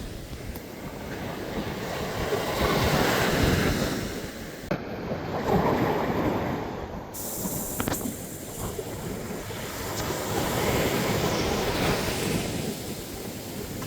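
Sea waves breaking on a sandy beach and washing up the shore, the surf swelling and easing several times.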